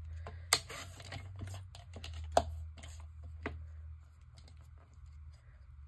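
Paper and a plastic paper trimmer being handled as a magazine cut-out is lined up under the trimmer's clear bar: a few sharp clicks and taps with soft paper rustling, over a low steady hum.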